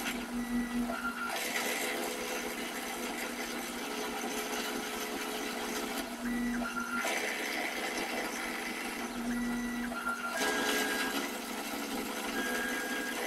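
Stepper motors of a homemade drill-press CNC driving its axes: held whining tones that jump to a new pitch each time a move changes, alternating three times with longer stretches of rougher, louder machine noise.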